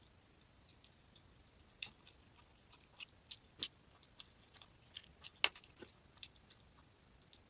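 Close-up eating sounds: faint, irregular crunchy clicks of chewing and biting, the loudest about five and a half seconds in.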